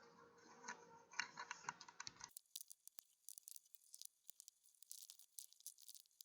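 Faint small clicks and scratches of lock picks and a tension wrench working inside a Master Lock 141 padlock. About two seconds in, the sound abruptly thins to faint, high ticking.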